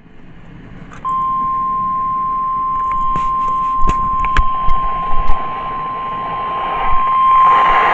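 NOAA Weather Radio warning alarm tone, a single steady high tone near 1050 Hz from a weather radio receiver, switching on about a second in and holding. It signals that a warning broadcast follows. Several sharp clicks come a few seconds in, and a hiss rises near the end.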